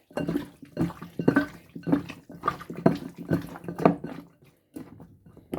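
Irregular wet squelches and splashes, about two a second, of hands working chicken wings in a soy-sauce and spice marinade.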